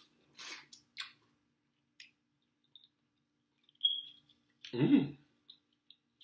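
Mouth sounds of a person eating mussels: a few short, sharp smacks and clicks in the first two seconds, then a brief hummed 'mm' about five seconds in, the loudest sound here.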